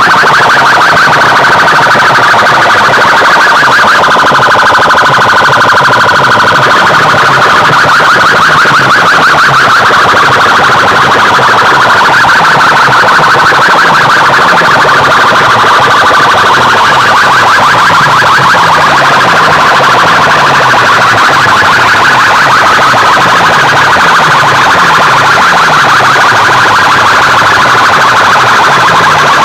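DJ sound-box rig blasting a siren-like warbling effect at full volume, heavily distorted and clipped, over a low bass sweep that falls about once a second.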